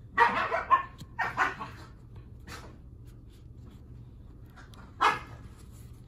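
A dog barking in short, separate barks: a quick run of four in the first two seconds, a fainter one, then a single bark about five seconds in.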